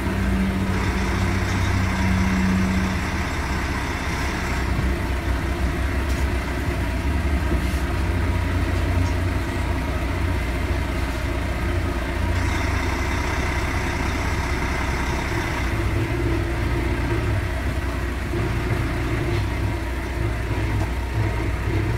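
A heavy truck's diesel engine running steadily at low revs as the truck creeps forward, heard from the cab with the side window down. Twice a higher hiss joins for a few seconds.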